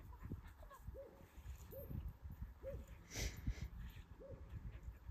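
Faint, short whines from a Schapendoes dog, four of them about a second apart.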